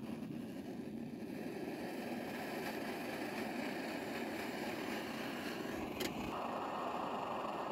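Optimus liquid-fuel camp stove burning steadily with a rushing hiss. About six seconds in, an aluminium kettle is set on the burner with a light clink, and the burner sound turns brighter under the kettle.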